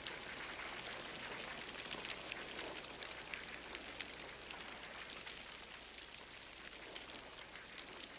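Fire crackling and hissing, with many small sharp pops scattered through it, slowly getting fainter toward the end.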